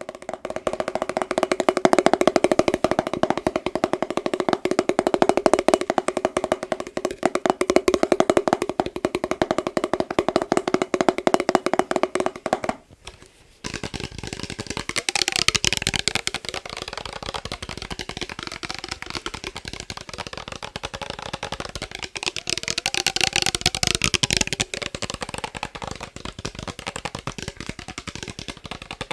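Rapid fingertip tapping on a glass mason jar, the glass ringing at a steady pitch under the taps. It breaks off for a moment about halfway through, then gives way to a noisier stretch of water sloshing inside the shaken jar, which swells twice.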